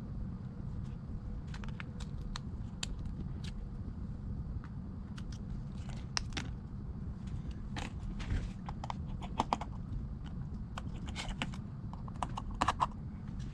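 Scattered small clicks and taps of hand tools working on an iPad, in irregular clusters, over a steady low hum.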